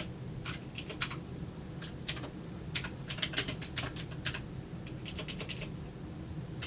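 Typing on a computer keyboard: irregular key clicks, several a second, over a faint steady hum.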